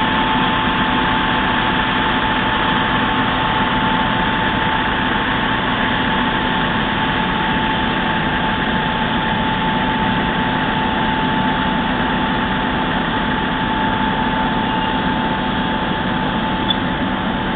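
Vacuum road sweeper truck working, its suction system drawing up milled asphalt debris through a front-mounted nozzle: a steady, loud rushing noise with a constant whine over the diesel engine.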